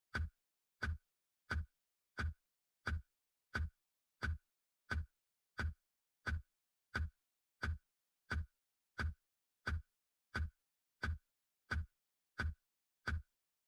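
A steady counting beat of short low thumps, each with a sharp click on top, evenly spaced at about three beats every two seconds with silence between. It is the rhythm for chanting a routine to an 8 count.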